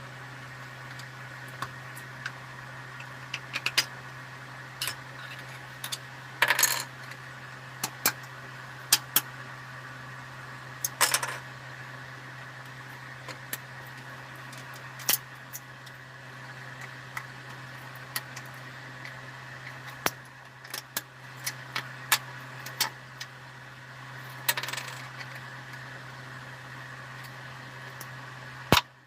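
A 3D printer hums steadily. Over the hum come small hard clicks and clinks every second or two, with three brief clattering rattles, like plastic pieces knocking and breaking loose.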